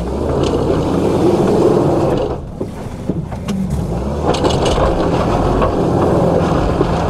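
Inside the cab of a 1998 Subaru Forester, its 2.5-litre flat-four engine revs hard under load while the tires spin for grip on a rough trail climb. The power eases off a little over two seconds in, then the engine pulls hard again with the wheels still spinning.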